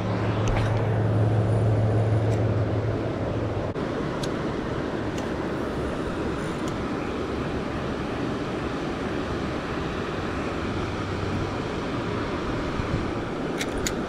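Rushing water of shallow river rapids, a steady hiss of running water. A low steady hum sits under it for the first few seconds and fades away, and a few light clicks come through.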